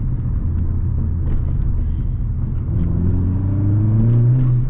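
Tenth-generation Honda Civic Si's turbocharged 1.5-litre four-cylinder engine and AWE exhaust running under way, a steady low note that rises in pitch and grows louder through the second half as the car accelerates.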